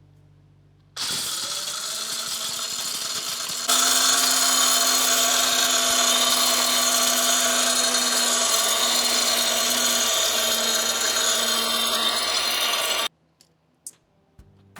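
Vtech 1 kg electric dry grinder (masala pulveriser) running at high speed and grinding whole pieces of dried turmeric root into powder. It switches on about a second in, gets louder a few seconds later, and stops abruptly near the end.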